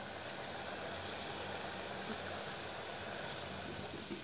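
Sugar syrup boiling vigorously in a steel pan on a high gas flame: a steady bubbling hiss, the syrup not yet thick enough to form a ball.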